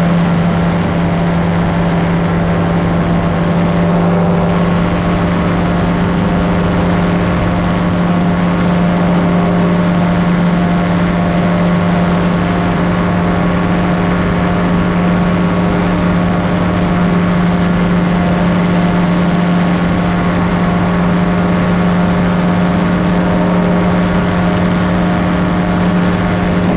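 Powered parachute's engine and propeller running at a steady speed in flight, holding one pitch throughout.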